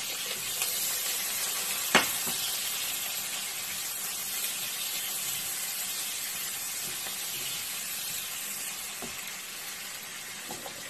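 Sliced onions sizzling as they fry in oil in a frying pan, stirred with a spatula. A single sharp knock sounds about two seconds in.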